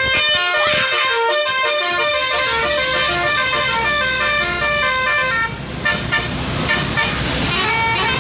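Indonesian bus 'telolet basuri' multi-tone horn playing a fast tune of short stepped notes, loud. About five and a half seconds in, the level dips a little and the notes become sparser.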